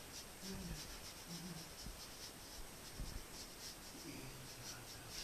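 Paintbrush stroking paint onto a painting board: faint, soft scratchy brushing repeated a few times a second.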